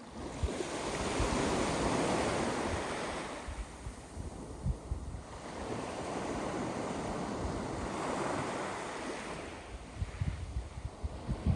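Sea waves washing in on a beach of sand and small pebbles, in slow surges: one swelling about a second in and fading after three seconds, another from about five to nine seconds, and a third rising near the end. Wind gusts buffet the microphone with a low rumble, most near the end.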